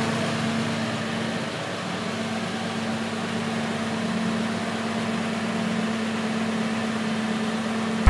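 Nissan Skyline 350GT (Infiniti G35) V6 engine idling steadily, with a constant hum.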